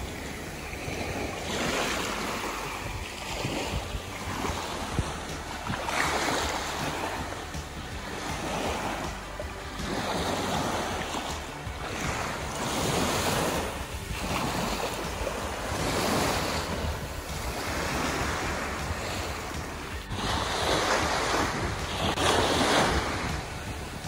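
Small sea waves breaking and washing up a sand beach, swelling and fading every few seconds, over a steady low rumble of wind on the microphone.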